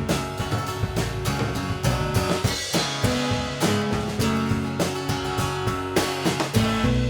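A live band playing an instrumental passage: a drum kit keeps a steady beat with kick and snare under held guitar and bass notes.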